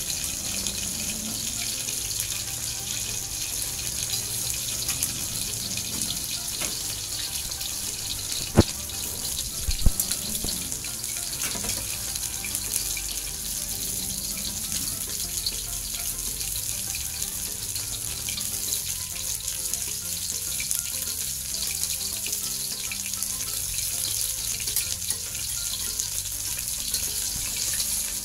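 Snakehead fish (dalag) frying in hot oil in a wok: a steady sizzling hiss, with two sharp clicks about a second apart near the middle.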